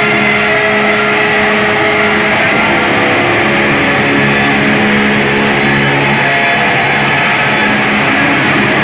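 Noise music: a loud, steady wall of distorted noise over held droning tones that shift in pitch a few times.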